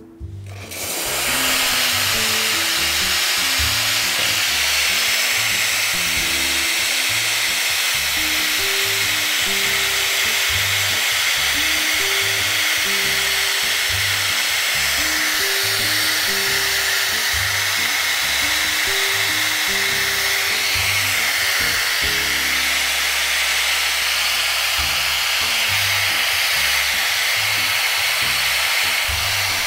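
Steam wand of a VBM Domobar Super espresso machine opened fully into open air, a loud, steady hiss that starts about a second in and keeps its strength without fading: the steam is stable and dry. Background music with a melody of low notes plays underneath.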